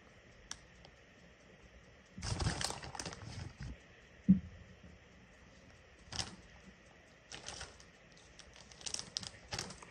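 Thick-cut shredded cheese being sprinkled from its package onto a casserole, with a couple of seconds of crinkling and pattering, one sharp knock about four seconds in, and a few short rustles after.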